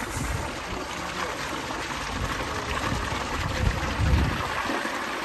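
Water pouring steadily from a swimming pool's water feature, a continuous rushing cascade, with a few low thumps, the strongest about four seconds in.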